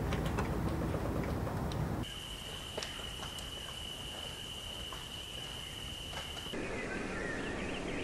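Shoreline ambience of gently lapping water, cut off about two seconds in by a quieter outdoor bed with a steady high-pitched whine. About six and a half seconds in this gives way to rapid high twittering chirps of an American goldfinch.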